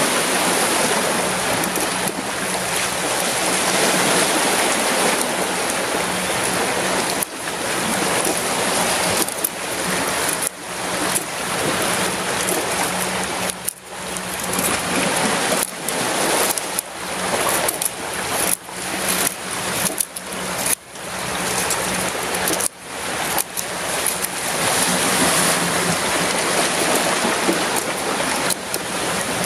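Sea surf washing on a rocky shore: a steady rush of water that breaks off and builds up again many times.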